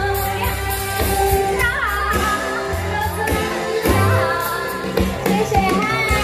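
A female singer sings a Taiwanese-language (Hokkien) pop song live over a recorded backing track through a PA system, with bass and a steady beat under the wavering melody.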